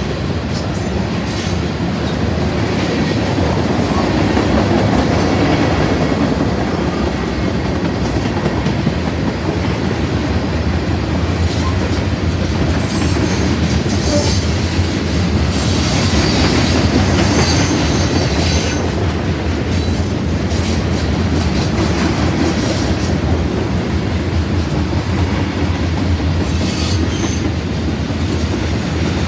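Freight cars (covered hoppers, then tank cars) rolling past on steel wheels and rails: a steady rumble, with faint high wheel squeals now and then.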